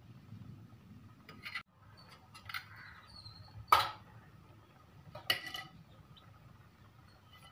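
Metal kitchen utensils clinking: four sharp clinks a second or so apart, the loudest about halfway through.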